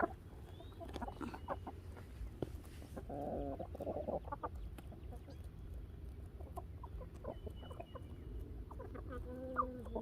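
Chickens clucking, in short runs of calls about three seconds in and again near the end.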